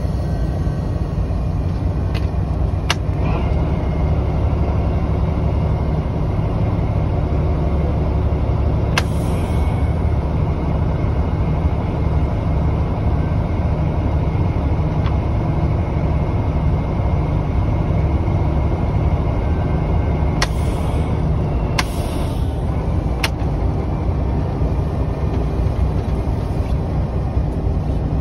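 Diesel shunting locomotive's engine running steadily with a deep rumble, heard from inside the cab as it rolls through the yard. A few sharp clicks or knocks cut in now and then, a couple of them followed by a brief hiss.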